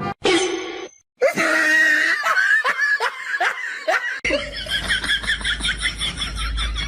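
People laughing hard in quick repeated bursts. About four seconds in the sound changes abruptly to a faster, higher-pitched run of laughter over a low rumble.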